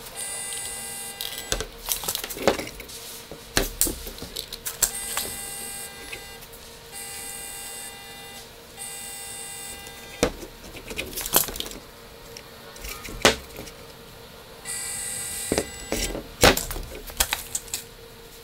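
Maslow CNC's Z-axis gear motor whirring in several short runs of one to three seconds, moving the router bit down to touch the wood, with clicks and knocks of handling in between and a faint steady hum underneath.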